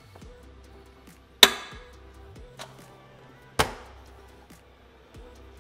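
Two sharp knocks about two seconds apart, with a faint tap between them, from a rice paddle striking the dish as cooked rice is served from a rice cooker. Background music plays underneath.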